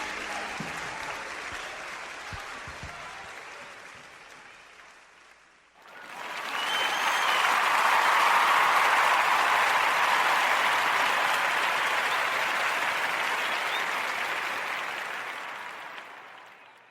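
Audience applause at the close of a live gospel song. The applause fades away, then a louder wave of clapping and cheering swells up about six seconds in and slowly fades out.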